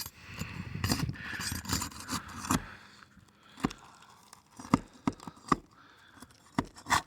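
Brittle roof shingles being pried and scraped loose for a repair test: scraping during the first couple of seconds, then several sharp separate cracks and clicks. The shingles are too brittle to lift and are tearing.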